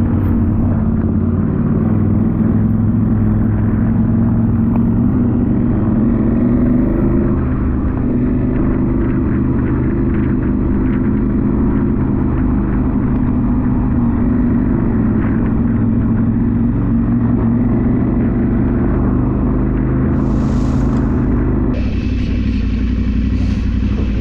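A KTM 790/890 Adventure R's parallel-twin engine running steadily under way on a ride, with noise from the road and the air. The sound changes abruptly near the end.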